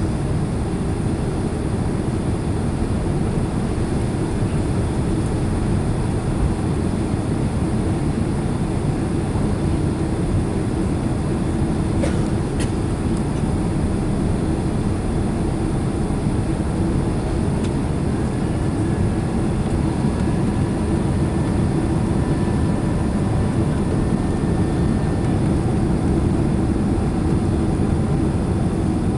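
Steady cabin noise of a Boeing 767 airliner on approach with flaps extended: the constant deep roar of engines and rushing air heard from inside the passenger cabin. A faint, thin whine comes in a little past the middle and fades out again.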